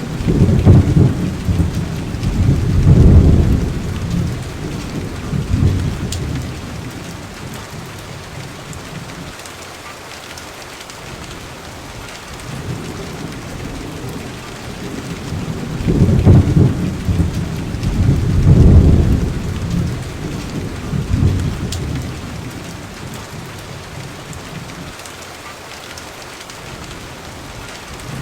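Thunderstorm: steady rain with long rolls of low thunder, one at the start and another just past the middle.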